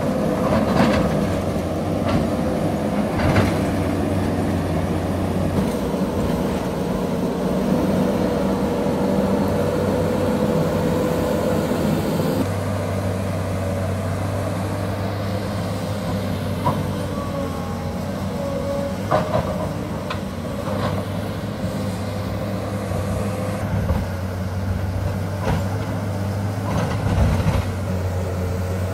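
SANY crawler excavator's diesel engine running steadily under working load as it digs into a hillside, with scattered sharp clanks and knocks from the bucket, rocks and steel tracks. The engine sound changes abruptly about twelve seconds in.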